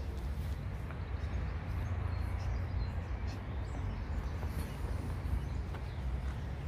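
Outdoor ambience: a steady low rumble with a few faint bird chirps over it.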